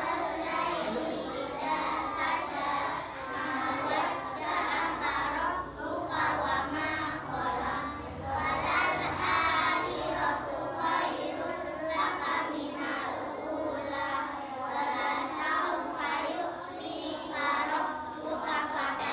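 A group of young children chanting the Arabic recitation of the salat prayer together in unison, in a sing-song voice without pause.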